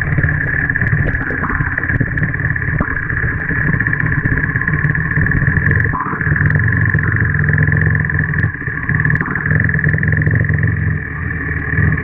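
Motorcycle engine running as the bike rides through a shallow creek crossing, with water splashing up off the front wheel. The engine note rises briefly about three times.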